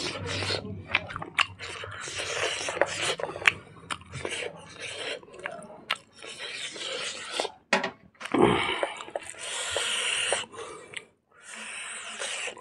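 Close-miked eating sounds: chewing, smacking and crunching of cooked silkworms and rice eaten by hand, with a drink from a glass partway through.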